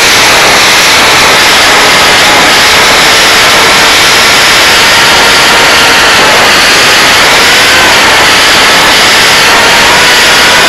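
Onboard sound of a Hardcore 44 FPV flying wing in fast flight: its Cobra 2814 2100 kV brushless motor spinning an APC 6x5.5 propeller, a loud whine over heavy wind rush. The whine's pitch dips right at the start, then wavers and rises again toward the end as the throttle changes.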